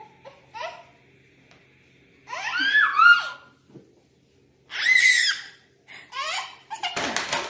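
Repeated high-pitched squeals in four bouts, each rising and falling in pitch, with the loudest around the middle. A short burst of noise follows near the end.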